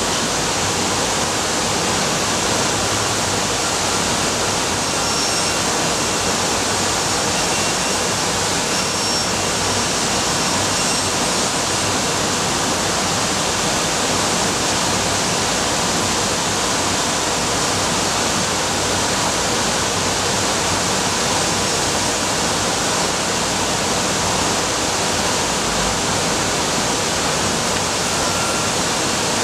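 Steady, even rushing noise with no breaks or changes in level.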